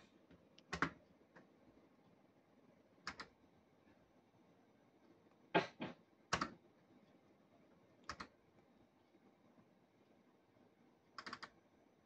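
About six short, sharp clicks and knocks from a Cops 'n Robbers Safe Cracker fruit machine, spaced a second or more apart. The loudest pair comes a little past the middle.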